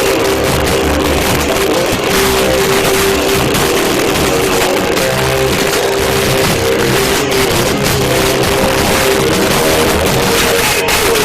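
Live rock band playing loud, with strummed distorted electric guitar, recorded so loud that the sound is overloaded and muddy.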